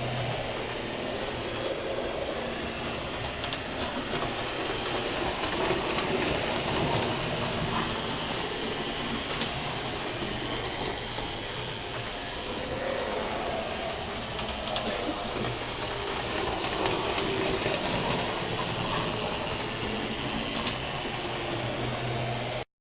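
Model railway train running on its track, a steady whirring rush with a low hum and a few faint ticks. It cuts off suddenly near the end.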